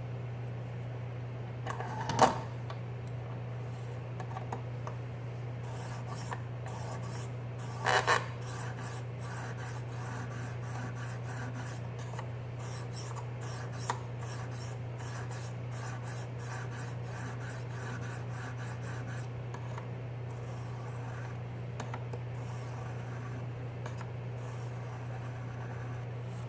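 600-grit diamond plate on a KME guided sharpener rasping along a steel knife edge in repeated strokes, at about two to three a second, while the blade is sharpened. Two louder knocks come at about 2 s and 8 s, over a steady low hum.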